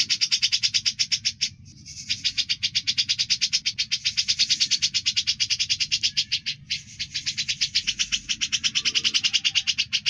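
Grey-cheeked bulbul (cucak jenggot) singing a fast, even run of buzzy chattering notes. The song breaks off briefly twice and resumes at once.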